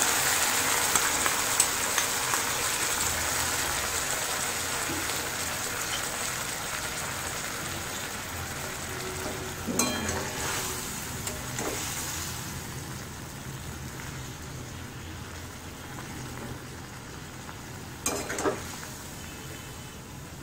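Curd-and-eggplant curry sizzling in an aluminium kadai, the sizzle slowly dying down as the gas is turned down to a simmer. A metal spatula scrapes and knocks in the pan twice, about halfway through and near the end.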